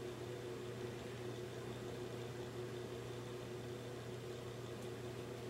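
Steady low hum with a faint hiss and no speech: room tone with machine or electrical hum.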